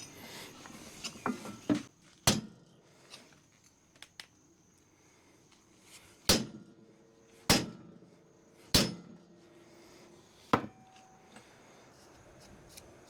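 Short-handled 20-pound sledgehammer striking a bent steel plate on a skid steer quick-attach to flatten it: five heavy blows spaced one to four seconds apart, some leaving a brief metallic ring, after a few lighter knocks.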